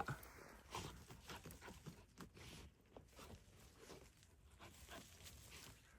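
Near silence, with faint, irregular rustles and taps scattered through it.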